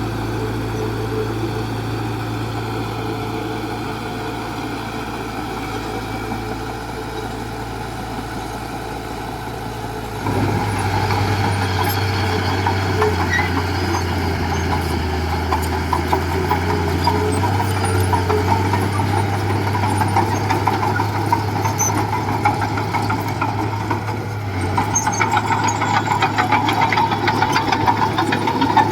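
Diesel engine of heavy construction machinery running steadily. About ten seconds in it grows louder and more rattly, and it rises again near the end.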